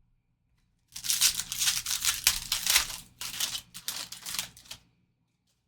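Foil trading-card pack wrapper being torn open and crinkled by hand: a run of sharp crinkling and tearing starting about a second in, quieter in its last part and stopping shortly before the end.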